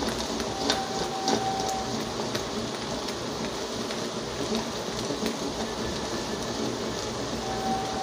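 Beaten eggs frying in oil among amaranth leaves in a kadai on high heat: a steady sizzle with scattered crackles and pops.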